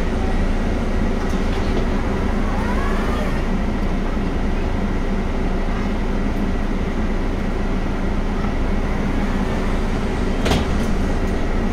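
Scania compressed-natural-gas engine of an articulated city bus idling steadily, heard from inside the passenger cabin. A short, sharp burst of noise comes about ten and a half seconds in.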